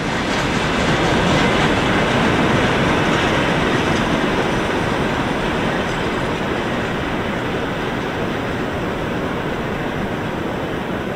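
Freight train of grain hopper cars hauled by a 2ES6 electric locomotive, approaching along the track: a steady rumble and rush of wheels on rail, easing slightly after the first few seconds.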